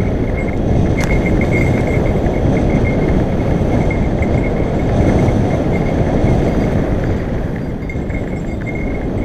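Wind buffeting a helmet-mounted camera and mountain bike tyres rumbling over a dry dirt singletrack on a fast descent. A cheap bell hung loose on the bike jingles with the bumps, and there is one sharp click about a second in.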